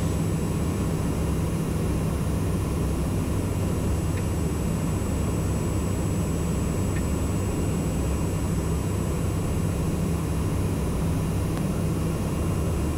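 Steady cabin drone of a Socata TBM 910's Pratt & Whitney PT6A turboprop and propeller in the climb: an even low hum with a thin high tone held above it.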